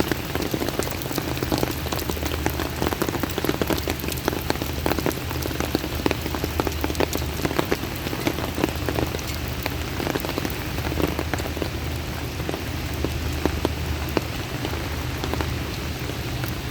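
Heavy rain pouring down, a dense hiss of rainfall with many sharp drops striking hard surfaces close by. A steady low hum runs underneath.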